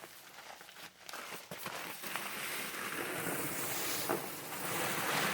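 Dry fast-setting concrete mix pouring out of a bag into a form: a few small rustles and clicks, then a steady grainy hiss that builds up from about a second in and holds.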